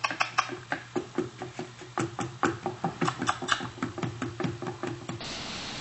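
Rapid, uneven wooden clicks and knocks, several a second, over a low steady hum; about five seconds in they stop and a steady hiss takes over.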